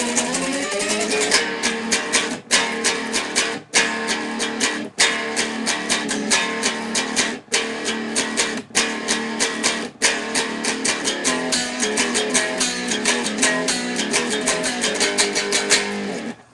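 Guitar being played: a quick run of picked notes, broken by brief stops every second or two. The playing cuts off abruptly near the end.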